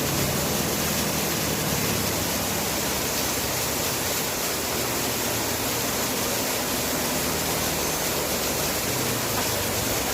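Roadside waterfall: water falling and rushing in a steady, even roar.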